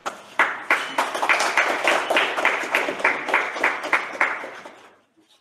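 A small group of people clapping by hand, a quick run of claps that dies away near the end.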